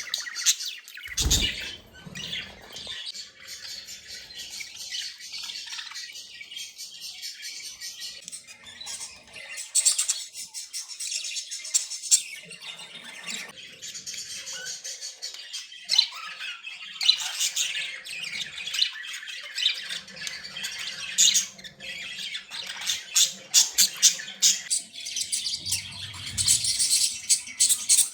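Budgies chattering: rapid high chirps, warbles and harsh squawks, with louder bursts of squawking in the second half.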